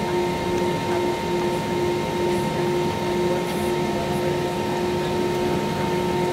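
Steady cabin noise of an Airbus A321 taxiing, with the jet engines at idle and the air-conditioning airflow under two steady hum tones.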